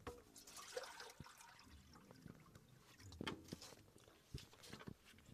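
Water poured from a plastic bucket into a small metal drinking cup, a faint trickle in the first second or so, followed by a few light knocks.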